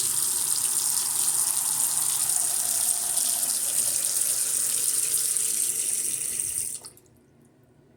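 Bathroom sink faucet running steadily into the basin, turned off abruptly about seven seconds in. The water is run to test a slow-draining sink drain, which the owner suspects is clogged with hair.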